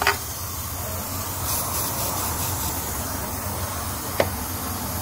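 Two sharp clicks of hand work on an engine's ignition coils and wiring, one at the start and one about four seconds in, over a steady background hiss.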